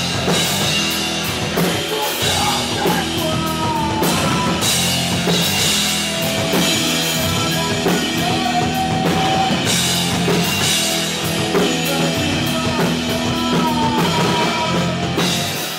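Rock band playing live: electric guitars, bass and drum kit at full volume, with a man singing.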